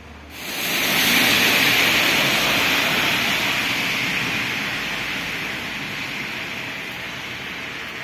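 Loud rushing noise with no tone in it. It comes in sharply near the start, is loudest a second or two in, and then slowly fades.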